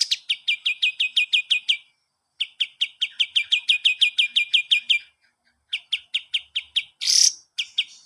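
Kapas tembak bird singing: fast runs of short, sharp chirps, each dropping slightly in pitch, about ten a second, broken by brief pauses, with a harsher rasping note about seven seconds in.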